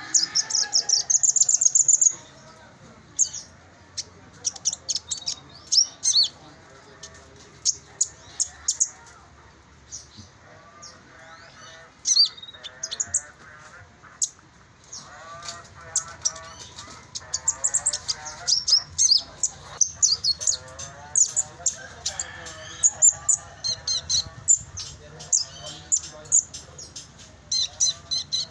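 Konin sunbird chirping in quick runs of high, thin, sharp notes with short pauses between runs. Softer, lower warbling from other birds runs beneath it.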